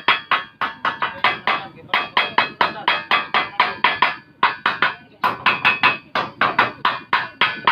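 A hammer striking steel rapidly, about four blows a second, each blow ringing. The blows come in runs, with short breaks about two, four and five seconds in.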